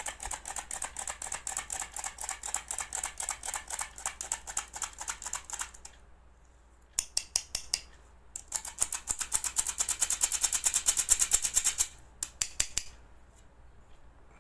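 Stainless steel hand-held flour sifter being worked, its handle mechanism clicking and rasping several times a second as flour falls through the mesh. It goes in three spells with short pauses between them and stops near the end.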